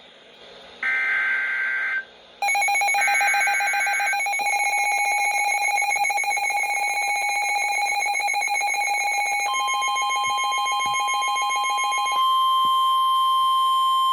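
Emergency Alert System tones for a severe thunderstorm warning. First comes a short, harsh, buzzy digital header burst. Then a loud, steady, piercing attention tone starts and runs, with another buzzy burst laid over its start. Around nine seconds in, a second, purer steady tone comes in, and a few seconds later the first tone cuts off, leaving the pure tone alone.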